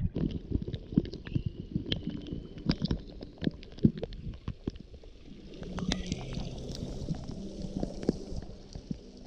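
Water heard from a camera held underwater in a pool: scattered clicks and crackles of bubbles and moving water. From about five and a half seconds in, a soft hiss of splashing water joins as the camera comes up by a small waterfall.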